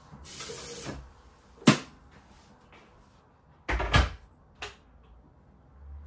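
Kitchen cabinet being opened and shut: a short sliding rush near the start, a sharp click a little later, then a louder double knock about four seconds in and a lighter click just after.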